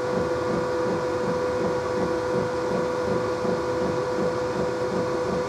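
Steady mechanical hum of a fan or motor running, with a held mid-pitched tone and a fast low pulsing under it.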